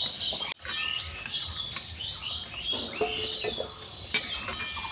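Small birds chirping: many short, overlapping calls, mostly sliding downward in pitch, with a brief dropout about half a second in.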